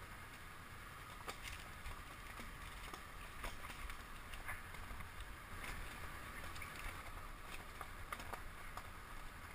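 Honda CB500X motorcycle riding over loose gravel: a steady low rumble with the tyres crunching through the shifting stones and frequent sharp clicks of gravel.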